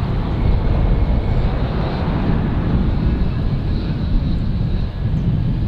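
Distant Cessna Citation Longitude business jet rolling out along the runway after landing. Its twin rear-mounted turbofans give a steady rush with a faint high whine.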